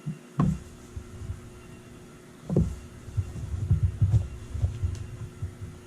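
Dull low thumps and bumps from objects being handled close to the microphone: a thump about half a second in, another about 2.5 s in, then a run of soft knocks, over a faint steady hum.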